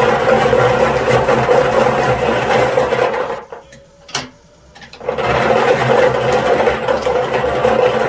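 Electric lotto ball machine running: a steady motor hum with balls rattling and clattering inside. It stops about three seconds in, a single click follows, and it starts up again about a second later.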